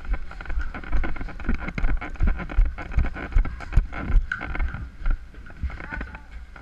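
Irregular thumps and clicks, several a second, from a player moving with a body-worn camera (footsteps and gear knocking against the microphone), over a steady rush of wind noise.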